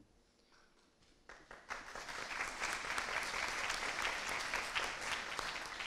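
Audience applauding. It starts about a second in after a brief quiet, builds quickly and begins to fade near the end.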